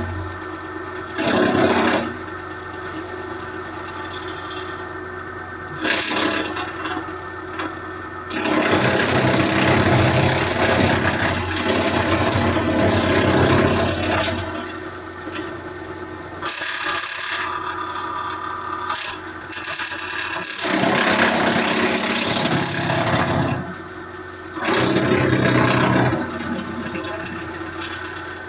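Hydraulic wood chipper running steadily on its engine, with loud bouts of chipping and rattling as wood is fed through: a short one about a second in, a long one in the middle, and two more near the end.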